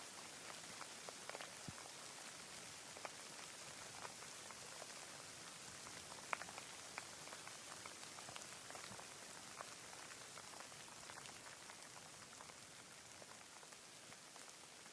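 Faint steady rain: an even hiss of rainfall with scattered individual drops ticking, one sharper drop just past the middle.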